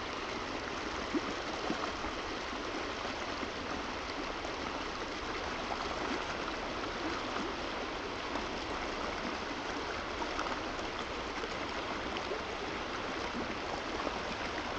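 Steady rush of a flowing stream, with one faint click about a second in.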